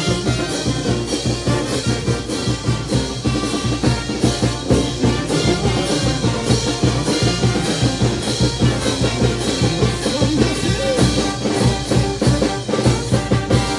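Live brass band playing with a steady beat: trumpets, trombones and sousaphones over hand cymbals and drums.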